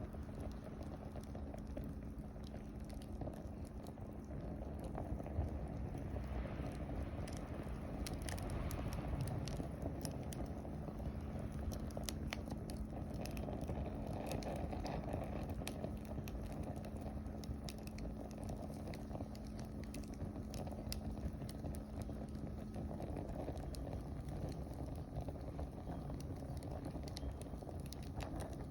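Wood fire burning with a steady low rush and scattered sharp crackles and pops.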